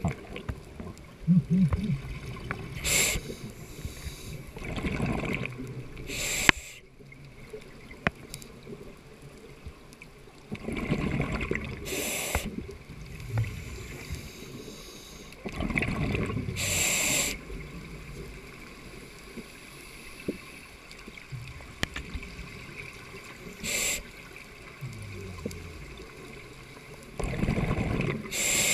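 Scuba diver breathing underwater through a regulator, with a rush of breath and bubbles every few seconds.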